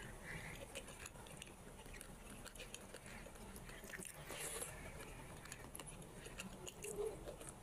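Chewing of a handful of rice and curry eaten by hand, with many small wet mouth clicks and smacks, and a louder bite as a fresh mouthful goes in about halfway through.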